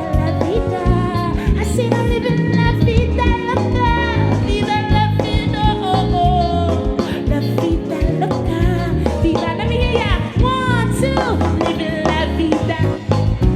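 Live band music with a woman singing: bass and drums keep a steady groove while the vocal line slides up and down over them.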